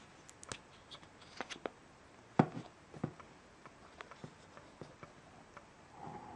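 Small clicks and taps of a cologne bottle and its cap being handled, the loudest about two and a half seconds in. Near the end comes a brief squeak as the cap is twisted off the threaded neck.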